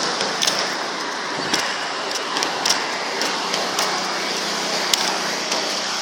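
Steady outdoor traffic hum with the light slap of flip-flop footsteps on brick paving, about one step every half second.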